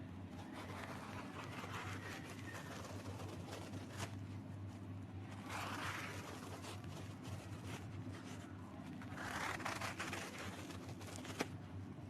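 Kinetic sand being cut and crumbling: soft, gritty scraping in three separate passes, with two sharp clicks, one in the middle and one near the end, over a low steady hum.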